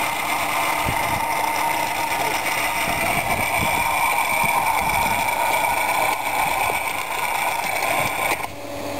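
Hydraulically driven rotary hoe running with its tines churning through clay and volcanic ash soil, over the steady drone of its hydraulic drive. The level dips briefly near the end.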